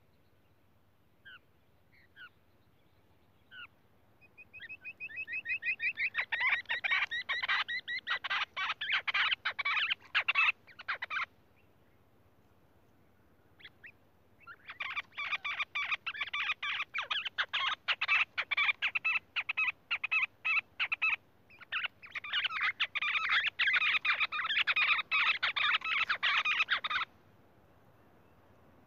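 Lahori quail calling: a few single notes, then three long bouts of rapid repeated notes with short pauses between them.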